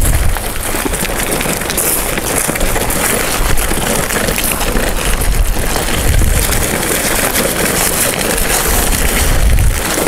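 Wind buffeting the camcorder's microphone: a loud, steady, gusting rumble with hiss on top.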